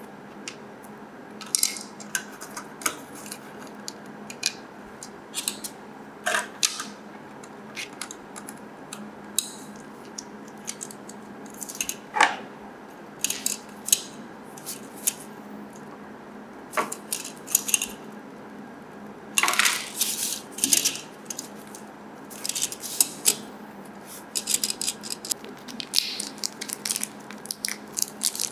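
Small hard plastic parts of a Mini 4WD kit clicking and knocking on a wooden table as the chassis and wheels are handled, a few clicks ringing briefly. In the second half a small plastic parts bag crinkles and rustles.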